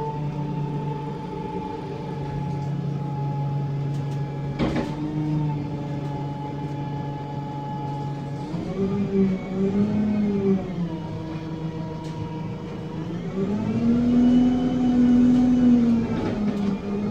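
Diesel engine and Voith automatic gearbox of an ADL Enviro 200 bus, heard from inside the saloon, with the gearbox whine unusually loud. The note holds steady at first, with a single knock about a third of the way in. Later the engine note rises and falls back twice as the bus accelerates through its gears.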